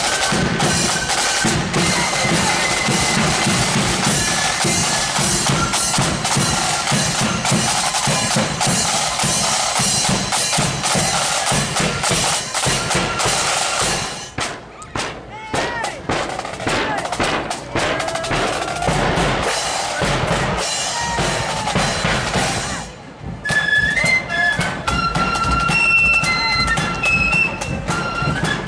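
Marching flute band playing: flutes with snare and bass drums. About halfway through the flutes stop and the drums carry on alone. After a short dip the flutes come in again near the end.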